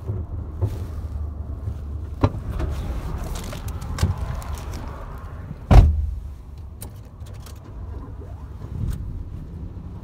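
Knocks and shuffling as someone climbs into the driver's seat of an SUV, with the driver's door slammed shut about six seconds in, the loudest sound, over a steady low rumble.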